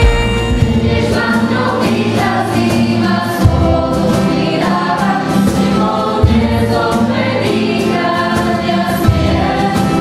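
Music with choral singing: many voices holding sustained notes over steady bass notes.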